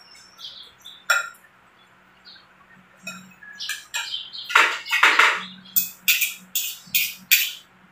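Close-miked eating sounds: a spoon and fork clinking and scraping on a plate of rice, then a quick run of chewing and lip-smacking sounds, about two or three a second, through the second half.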